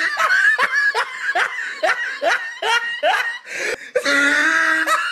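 Laughter: a string of short laughs, each dropping in pitch, about two or three a second, running into a longer drawn-out laugh near the end.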